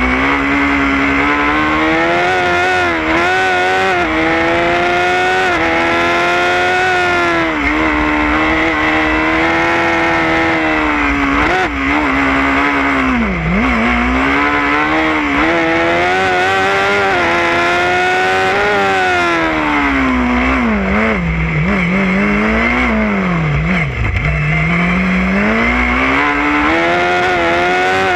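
Formula SAE race car engine recorded on board, revving up and down as the car accelerates and brakes through the cone course. Its pitch drops sharply a little after halfway and several more times late on, as the car slows for tight corners.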